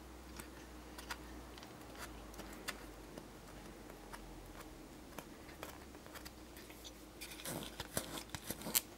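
Light, scattered clicks of a printed circuit board being handled, fingers and fingernails pressing on the board and its components, with a quick run of louder clicks near the end as the board is moved.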